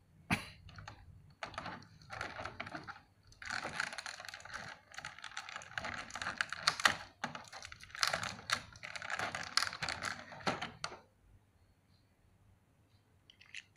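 Rapid clicking and rattling of small hard-plastic action-figure armor parts being handled and fitted, in dense clusters that stop about eleven seconds in.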